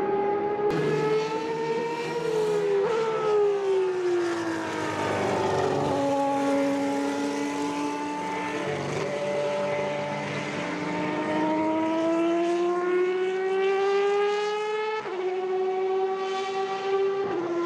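Superleague Formula Panoz DP09B's 4.2-litre V12 race engine at high revs: the note drops for a few seconds as the car slows, then climbs steadily for several seconds under acceleration and steps down abruptly about fifteen seconds in at an upshift.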